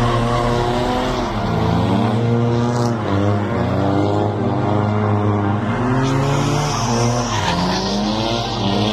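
Nissan 350Z's V6 engine revving up and down through a drift, with tyres screeching. The revs drop sharply twice, about a second and a half in and again near the end, then climb back.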